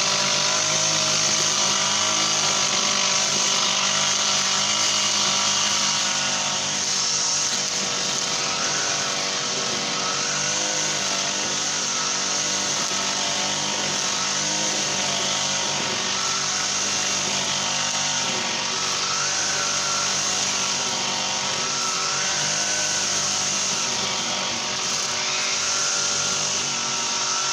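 Brush cutter with a Honda GX35 four-stroke engine running steadily at working speed, its pitch wavering a little.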